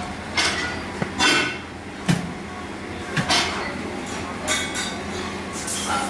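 Irregular sharp metallic clinks and knocks, about ten in six seconds, some ringing briefly, over a steady low electrical hum.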